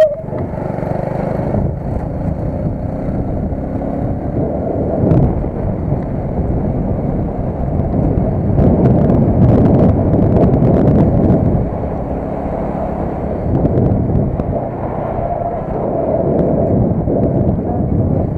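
A vehicle on the move: steady engine and road noise, louder for a few seconds about halfway through, with a few faint clicks.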